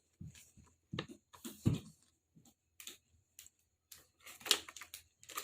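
Scattered light clicks, taps and soft rustles of small kit items being handled, irregular and without rhythm, a few with a dull thump about one to two seconds in.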